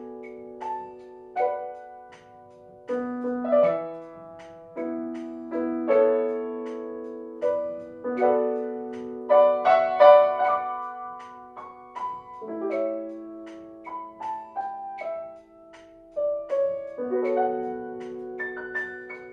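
Slow, gentle piano music: a melody of single struck notes over held chords that change every few seconds, each note left to ring and fade.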